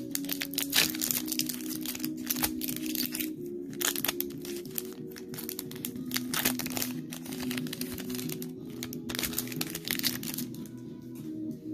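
Crinkling of foil Pokémon booster-pack wrappers being handled, over background music with steady held notes; the crinkling thins out about ten seconds in.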